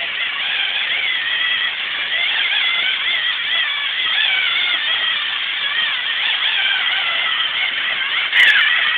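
Lego Mindstorms NXT servo motors whining as the tracked line-following robot drives, the pitch wavering up and down as it keeps correcting its steering along the line. A sharp click about eight and a half seconds in.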